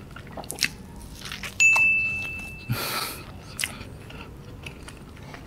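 Mouth sounds of eating a chocolate lava cake: soft biting and chewing with small clicks. A high steady tone sounds for about a second, and a short hiss follows just after it.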